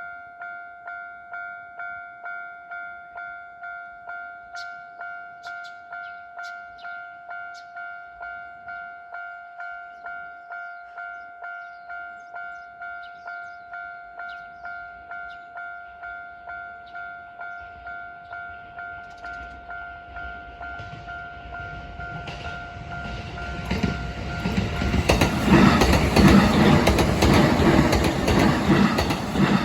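Japanese level-crossing warning bell ringing in a fast, even ding-ding pattern. Near the end a Hankyu Arashiyama Line train comes up and passes over the crossing loudly with clattering wheels, and the bell stops as the train goes by.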